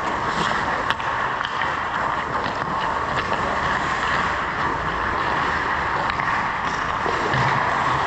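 Steady ice-rink ambience during a hockey game: a constant hiss-like hum, with faint scattered clicks from play at the far end and one sharp click about a second in.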